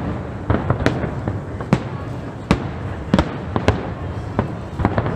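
Aerial firework shells bursting in an irregular run of sharp bangs, about two to three a second, over a steady low rumble.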